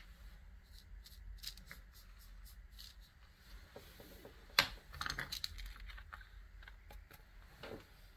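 Faint small taps and clicks of a brush and a paper card being handled on a wooden board during sand painting. There is one sharp tap about four and a half seconds in, then a quick flurry of small clicks.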